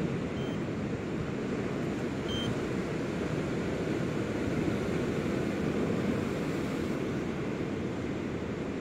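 Steady rushing of wind and surf on the beach, with two short high electronic beeps about two seconds apart early on.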